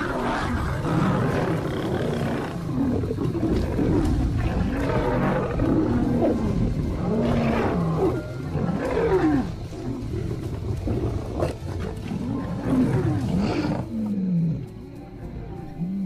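Lions fighting, with loud, overlapping calls that rise and fall in pitch, one after another. They ease off in the last couple of seconds.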